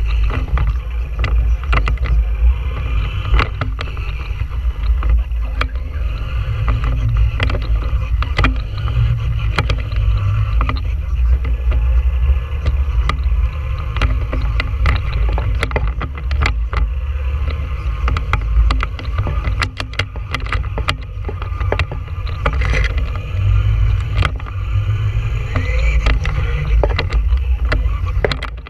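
Traxxas Stampede 2WD RC truck driving, heard through the GoPro mounted on it: a heavy rumble and wind buffeting on the camera's microphone, with the electric motor's whine rising and falling with the throttle and frequent clicks and knocks as the truck goes over bumps.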